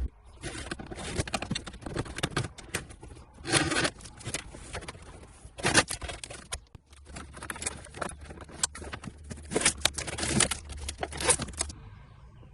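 Wires and plastic dash parts being handled and pulled through behind the radio opening: irregular scraping, rustling and sharp clicks.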